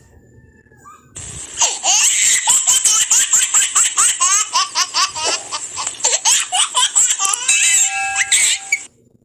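High-pitched laughter, an added laugh sound effect, starts about a second in, runs for several seconds, and cuts off suddenly near the end. A few steady tones join it just before it stops.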